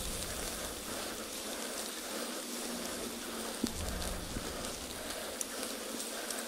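Bicycle rolling slowly over thick lawn grass: a steady hiss of tyres and grass blades, with scattered small ticks.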